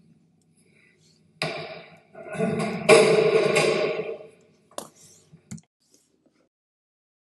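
A loaded barbell clanking down with metallic ringing, a first hit about one and a half seconds in and a louder one about three seconds in, then a couple of light clicks.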